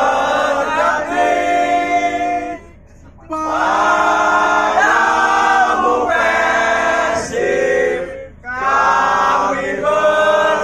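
Men singing a song together, led by one male voice over a handheld microphone, in long held phrases with two short pauses, about three seconds and eight seconds in.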